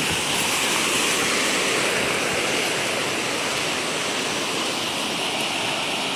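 Steady rushing of fast-flowing muddy floodwater.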